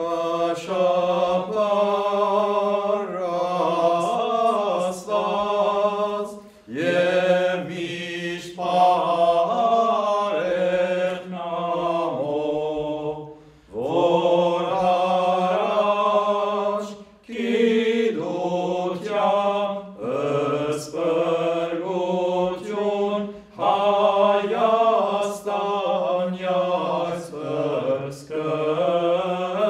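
Sacred church chant: a voice sings long, ornamented melodic phrases over a steady held drone note, pausing briefly between phrases, with some phrases opening on an upward slide.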